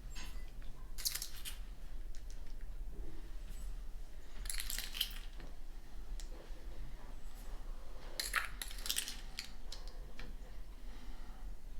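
A tablespoon scooping sugar and tipping it into ramekin cups: light clinks of the spoon on the cups with the rustle of poured sugar, in three short bursts a few seconds apart.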